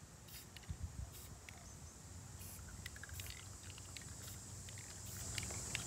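Aerosol spray-paint can giving several short hisses, each a fraction of a second, roughly a second apart. Under them runs a faint steady high insect chirring that grows louder near the end.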